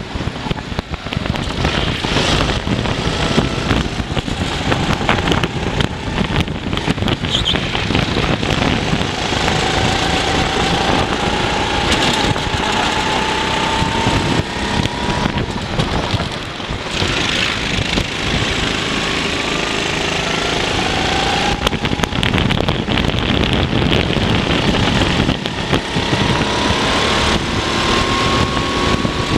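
Racing kart engine heard from an onboard camera at race speed. Its pitch climbs slowly several times as it revs out down the straights, under a heavy rush of wind on the microphone.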